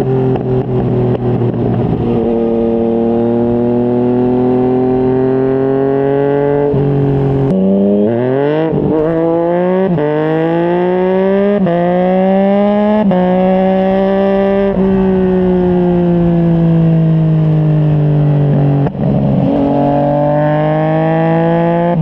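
Yamaha MT-09's three-cylinder engine through a Yoshimura R55 slip-on exhaust, heard from the rider's seat. It cruises steadily, then accelerates hard about a third of the way in, the note rising and stepping down with several quick upshifts, before settling back to a steady cruise.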